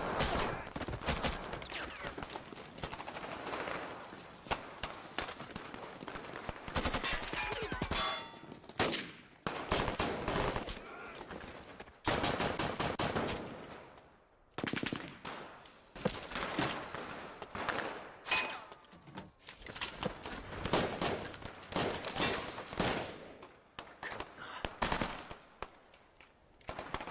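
Battle-scene gunfire: repeated rapid bursts of automatic rifle and machine-gun fire, with brief lulls about halfway through and near the end.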